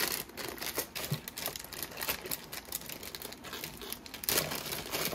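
Clear plastic zip-lock bag crinkling and crackling as it is handled and its zip closure is pulled open, louder near the end.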